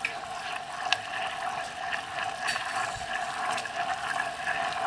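Golden syrup and water boiling in a small stainless steel saucepan as a steady bubbling hiss, stirred with a silicone spatula, with a few faint clicks. The syrup is being reduced until it thickens.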